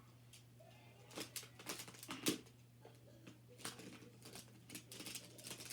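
Plastic magnetic building blocks clicking and clacking as they are picked up, set down and snapped together: a series of light, irregular clicks.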